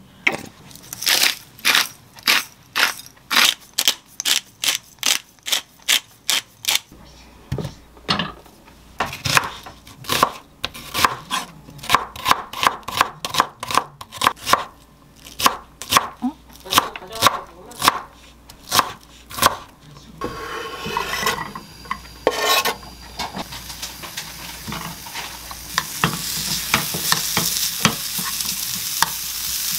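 A chef's knife chopping an onion on a wooden cutting board in steady, even strokes, about two a second and quickening. Near the end the chopped onion starts to sizzle in a frying pan as a wooden spoon stirs it, and the sizzle grows louder.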